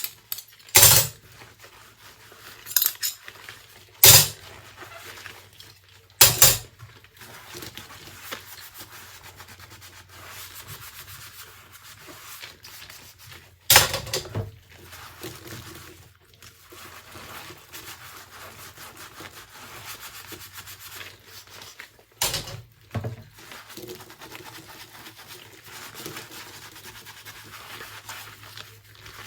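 Dishes being washed by hand: a sponge scrubbing with a soft rubbing hiss, broken by about six sharp clinks and clatters of dishes knocked or set down.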